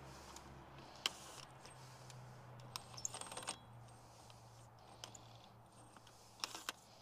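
Scattered light metallic clinks and rattles of a socket working on the 36 mm axle nut of a Jeep Cherokee XJ front axle hub, with a cluster of quick clicks about three seconds in and two more near the end, under a faint steady low hum.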